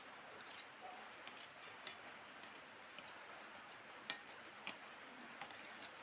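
Faint, irregular small clicks and ticks from someone eating spicy Maggi noodles and egg, about a dozen spread unevenly over a low hiss.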